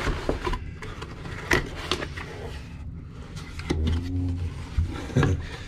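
Cardboard box being opened by hand: the lid is lifted and slid off with papery scraping and a few light knocks and taps of cardboard.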